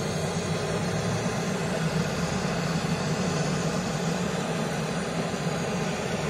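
Handheld gas torch burning, a steady hissing roar of the flame as it is held against split oak and pecan logs to light a wood fire.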